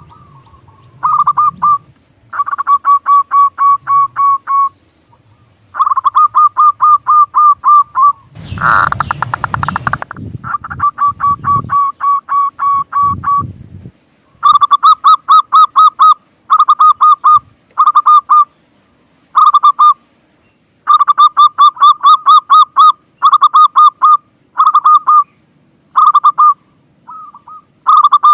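Zebra dove (perkutut) calling: bursts of rapid, evenly repeated cooing notes, one series after another with short pauses between. About eight seconds in, a loud rushing noise lasts a second or two over the calls.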